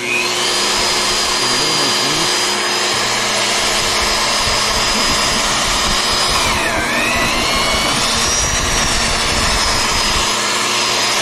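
VEVOR magnetic drill's electric motor switched on and running with a steady high whine as a 50 mm carbide-tipped annular cutter bores into half-inch mild steel. About seven seconds in, the whine drops as the motor slows under the cut's load, then its speed control brings it back up.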